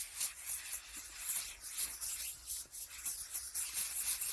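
Bug spray being put on: an uneven, scratchy hissing in many quick irregular pulses.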